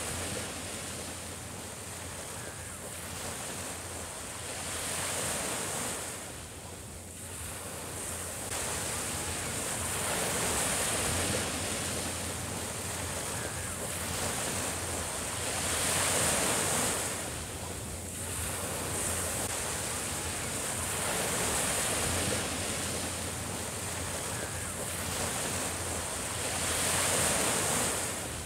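Small Mediterranean waves breaking and washing up a sandy beach, the surf swelling and easing about every five or six seconds.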